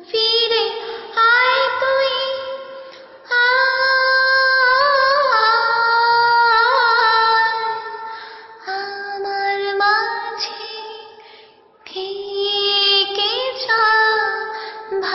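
A woman singing a wordless melody in long held notes, some with a slight waver, in phrases broken by short pauses about 3 and 12 seconds in.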